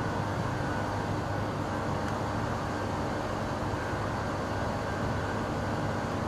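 Steady, even mechanical drone with a low hum and several faint constant tones, unchanging throughout.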